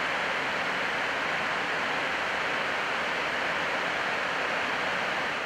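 Steady, even rushing noise on the flight deck of a Boeing 777-200LR in the climb: air rushing past the nose and windscreen.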